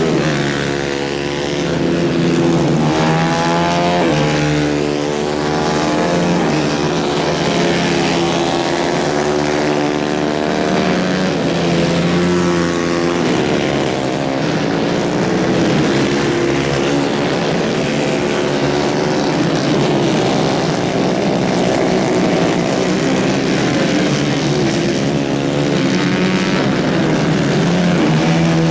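Several 150 cc racing kart engines running hard, their pitch rising and falling as they accelerate and back off through the corners, with more than one engine heard at once.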